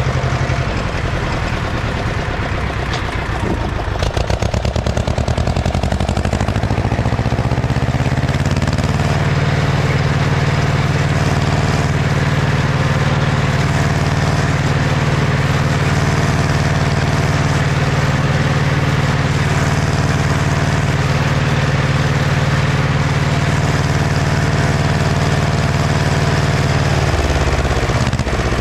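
Ursus C-335 tractor's two-cylinder diesel engine revving up over a few seconds, running steadily at high revs for most of the time, then dropping back near the end.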